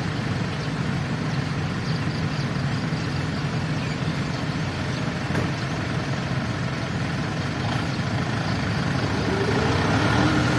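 Truck engine running steadily with road noise, low and even throughout.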